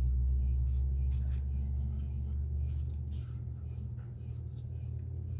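A steady low hum whose deepest part drops away about three seconds in, with faint light ticks of small paper pieces being handled.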